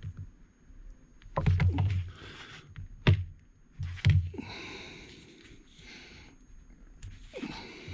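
Workbench handling noises from the battery and connector work: rustling, a sharp click about three seconds in, a knock a second later, then a quieter steady hiss.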